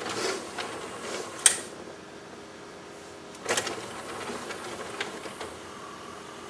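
Sony LaserDisc player's motorised loading drawer running in and out, a steady small-motor and gear whirr broken by sharp mechanical clicks about a second and a half in and again near the middle as the drawer reaches its stops.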